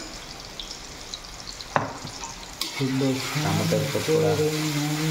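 Tomato masala frying and sizzling in a kadai as it is stirred, with two sharp knocks against the pan near the middle. Over the second half a voice hums or talks low in the background.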